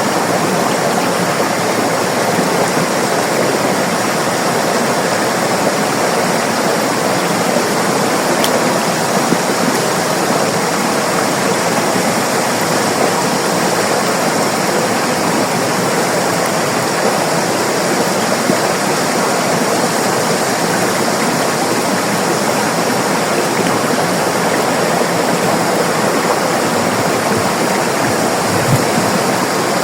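River water rushing and babbling over rocks: a steady, even flow with no let-up.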